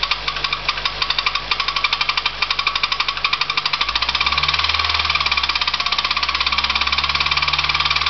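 Nissan Primera engine running with a rapid, even mechanical ticking clatter, the bad engine noise its owner cannot identify.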